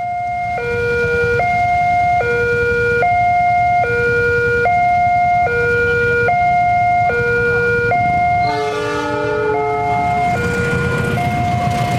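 Railway level-crossing warning alarm sounding its two-tone electronic signal, a high and a low tone alternating about every 0.8 s, over idling motorcycle engines. About nine seconds in, the alarm gives way for about a second to a train horn sounding a chord of several tones. Near the end the low rumble of the approaching train grows.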